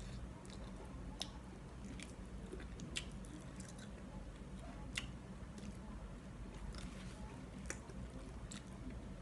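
A person chewing and smacking close to the microphone while eating braised chicken feet by hand: irregular wet mouth clicks and sucking sounds, a few sharper ones standing out. A steady low hum runs underneath.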